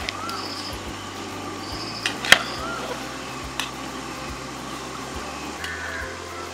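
A slotted steel spoon stirring boiling ash gourd pieces in an aluminium pot, with one sharp metal clink about two seconds in and a lighter one a second later, over a steady hiss. A few short high chirps sound in the background.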